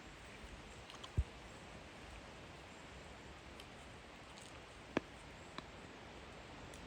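Gum chewing with a faint steady hiss behind it, broken by a soft low thump about a second in and a sharp mouth click about five seconds in, followed by a fainter click.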